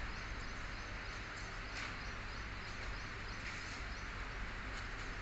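Outdoor ambience: a steady, even hiss with a low rumble beneath it, and a couple of faint short sounds such as distant chirps.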